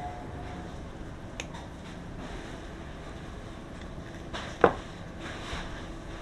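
Steady low background noise with a faint click, then one sharp knock, like a tool or part being set down or struck.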